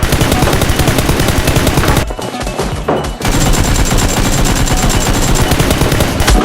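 Automatic gunfire sound effect in two long rapid bursts with a short pause between them about two seconds in, over background music.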